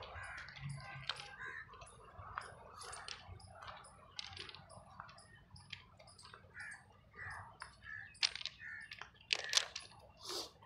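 Irregular crunches and clicks of footsteps on railway track ballast stones, several a second, with a few louder crunches near the end.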